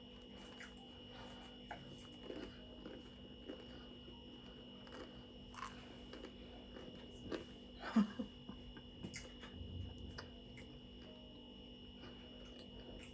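A person biting into and chewing avocado toast on rye bread: faint, soft crunching and wet mouth sounds, with one brief louder mouth sound about eight seconds in.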